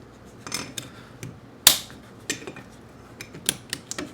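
Small metal lathe headstock parts clicking and clinking as they are handled and fitted into place, in a string of separate light knocks with one sharper knock a little under two seconds in.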